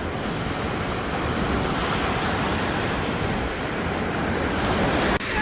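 Lake Michigan waves breaking and washing on the shore, a steady rush of surf.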